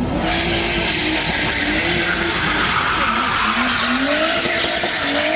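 Drift cars sliding through a corner: a continuous tyre squeal, with the engines revving up and down again and again as the drivers hold the slide.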